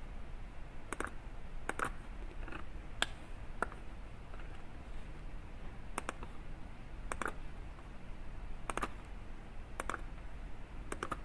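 Computer mouse button clicking, about ten irregularly spaced clicks, many heard as a quick double tick of press and release.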